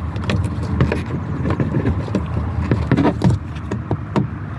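Plastic door trim molding on a 2006 Ford Explorer being pried off by hand: a run of irregular small clicks, creaks and knocks as the trim and its clips work loose, over a steady low rumble.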